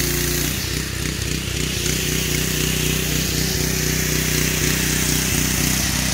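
Ryobi 3200 PSI gas pressure washer engine running. About half a second in, its steady note turns to an uneven, pulsing beat, over a steady hiss of spray from the foam cannon.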